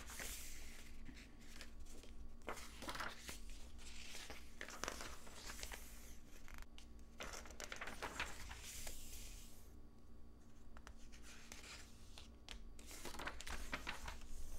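Magazine pages being turned and riffled by hand: a series of soft paper swishes and rustles, with a quieter pause near the end before a few more page turns.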